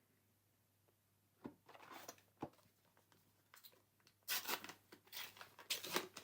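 A foil trading-card booster pack being torn open and crinkled, with a few light clicks and rustles first, then two louder rips about four and a half and six seconds in.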